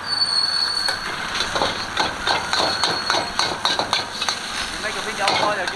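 Steel ladle knocking and scraping against a wok while fried rice is stir-fried, about three clanks a second.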